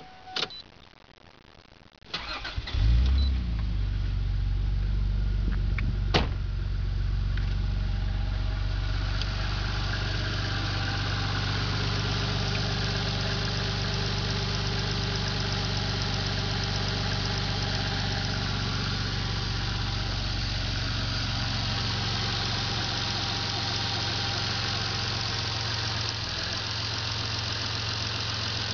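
Toyota 2JZ-GTE 3.0-litre twin-turbo straight-six cranked and started about two seconds in, flaring briefly before settling to a steady idle. At idle it makes a pulsating chirp from the right valve cover near the PCV valve, a noise whose cause the owner cannot place.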